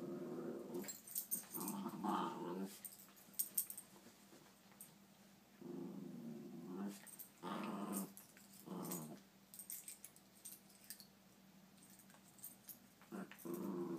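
Puppies play-growling as they wrestle, in about five short growls of a second or less, then a lull of a few seconds. Scratchy rustling of the bedding under their paws runs between the growls.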